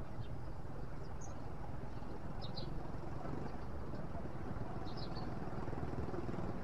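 Steady low outdoor rumble, like wind on the microphone, with a few faint high chirps about a second, two and a half and five seconds in.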